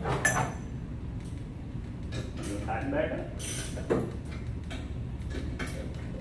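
Metal hardware being handled as the blade nuts go back onto the underside of a walk-behind rotary mower: a sharp clink with a brief ringing about a quarter second in, a creaking stretch around three seconds, and a knock just before four seconds.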